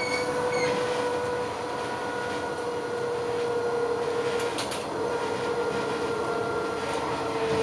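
Electric tram running along its rails, heard from on board: wheel and track rumble under a steady electric motor whine that slowly drops in pitch as the tram slows. A short high-pitched squeal comes right at the start, and a few sharp clicks come about four and a half seconds in.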